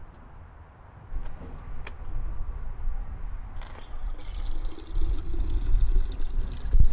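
Water running from the spigot of a plastic water jug into an insulated bottle. It grows louder as the bottle fills, then cuts off abruptly at the end. A couple of clicks from the spigot come just before it starts.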